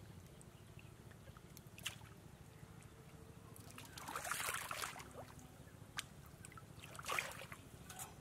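Hands sloshing and splashing in shallow muddy water while feeling for fish, with louder splashes about four seconds in and again near seven seconds, over a low steady rumble.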